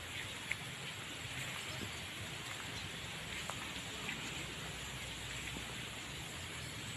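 Steady outdoor background hiss with a few faint, short ticks and chirps scattered through it.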